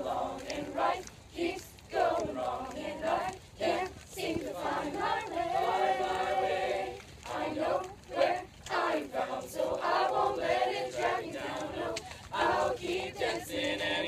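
A group of girls' voices singing together, a chanted song with some longer held notes.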